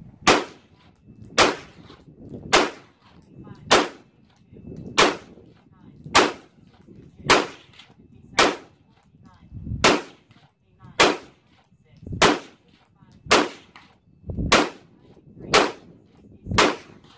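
IWI Tavor 5.56 bullpup rifle with a flash hider firing a rapid string of fifteen shots, evenly spaced about one a second.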